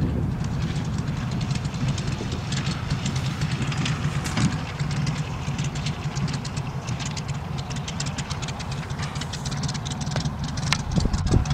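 Austro-Daimler inline-six aero engine of an Albatros D.III biplane running steadily at low power, with a fast, even firing beat.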